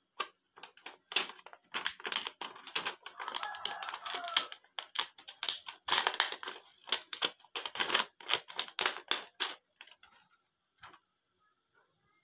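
Small red plastic toy knife and spoon being handled: a rapid, irregular run of plastic clicks and taps with some rustling, which thins out to a few faint ticks about three-quarters of the way through.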